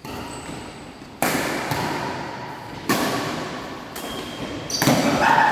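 Badminton rackets striking a shuttlecock in a rally, four sharp hits about one and a half seconds apart, each ringing out in the hall's echo. Near the end comes a louder sound with a held tone.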